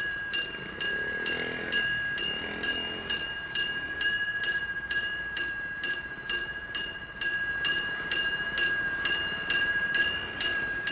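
Railroad crossing warning bell ringing steadily at about two strikes a second, the ring carrying on between strikes.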